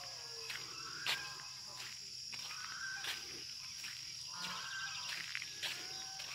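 Steady high-pitched chorus of insects, like crickets, with scattered short chirping calls over it and a few sharp clicks, the loudest about a second in.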